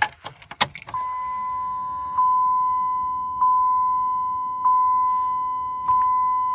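Ignition keys jangling and clicking as the key is turned on, then the 2004 Dodge Ram's dashboard warning chime: a single steady tone struck five times, about every 1.2 seconds, each stroke fading slowly. It sounds at key-on, before the diesel is cranked.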